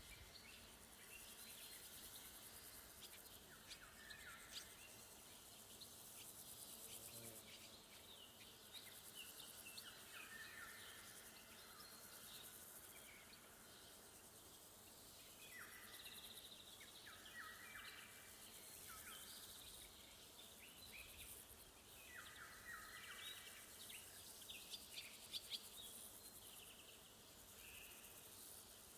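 Faint woodland ambience: crickets chirring steadily at a high pitch, with songbirds calling and singing in short, scattered phrases.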